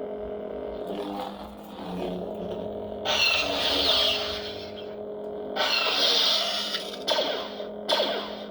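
Lightsaber sound font played through the saber hilt's speaker: a steady electronic blade hum, with several louder whooshing swing sounds about three seconds in, halfway through, and near the end.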